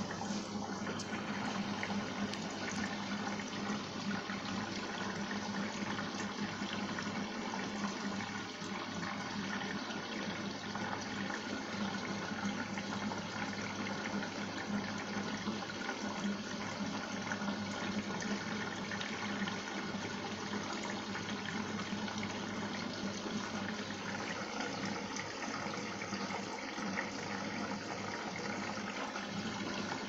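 Front-loading Arçelik washing machine filling with water: a steady rush of water running into the drum, over a steady low hum.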